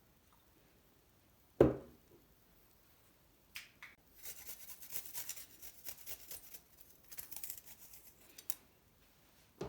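Kitchen food-preparation sounds: a single heavy thud, then about four seconds of crisp, scratchy strokes in quick succession.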